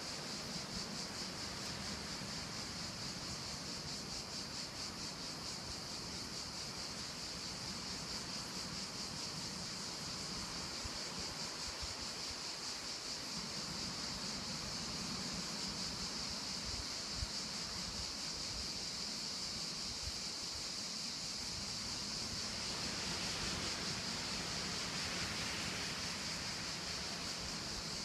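Outdoor wind ambience: wind moving through the trees and buffeting the microphone in uneven low gusts, over a steady high-pitched hiss. The hiss swells a little about four fifths of the way through.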